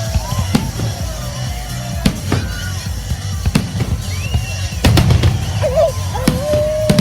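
Fireworks display with a run of sharp bangs at irregular intervals over a rumble, the loudest cluster about five seconds in. Gliding pitched tones run through it, and a long held whistle-like tone starts near the end.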